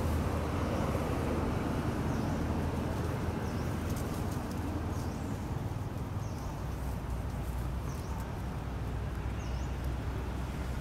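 A steady low rumble, with a bird's short high chirps repeating every second or two.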